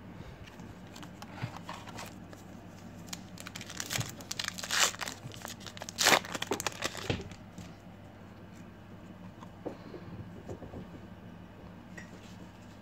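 A trading-card pack's wrapper being torn open and crinkled by hand, with a run of sharp rips in the middle. The crinkling stops about seven seconds in, leaving only faint light clicks as the cards are handled.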